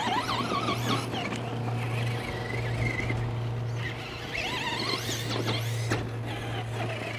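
Radio-controlled off-road race cars whining past, several passes whose high whine rises and falls in pitch with the throttle. A steady low hum runs underneath.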